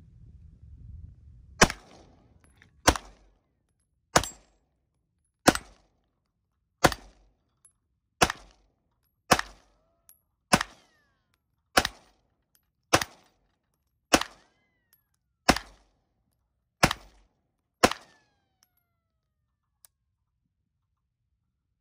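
A CZ Shadow 2 9 mm pistol fires about fourteen single shots at a steady, unhurried pace of roughly one a second, each a sharp crack with a short ringing tail.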